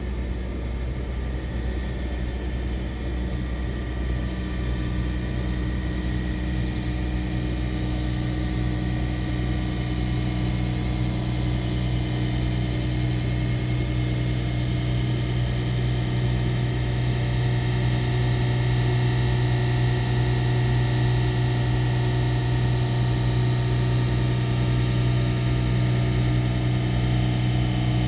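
Diamond-cut wheel lathe spinning an alloy Ford Raptor wheel while its cutting tool skims across the wheel face. The machine gives a steady low hum with several thin, higher whines, slowly growing louder.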